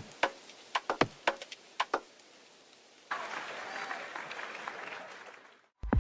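Between two electronic dance tracks: the beat stops and a few sparse percussive hits trail off, then about three seconds in a wash of applause-like crowd noise rises and fades away, cut to a brief silence just before the next track's beat starts at the very end.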